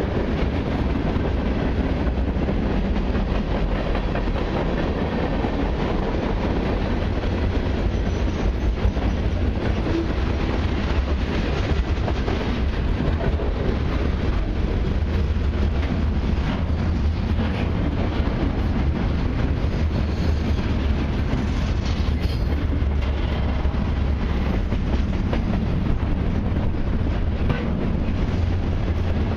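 Freight cars of a long mixed freight train rolling past, a steady rumble of steel wheels on rail with clickety-clack as the wheels cross rail joints.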